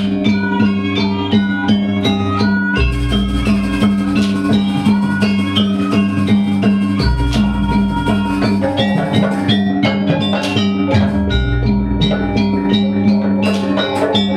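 Jaranan gamelan music: quick, ringing pitched metal notes over a steady drum pattern, with a deep low stroke about every four seconds.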